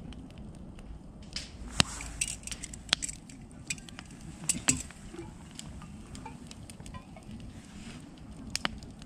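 Wood fire burning in a metal fire pit, crackling with a steady low rush and a few sharp pops. The loudest pop comes about two seconds in.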